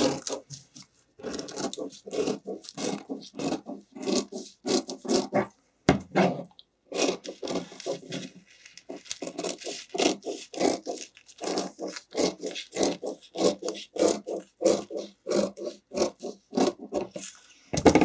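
Spring-loaded fabric scissors snipping through spandex, a quick steady run of cuts at about three a second, with a short pause about six seconds in.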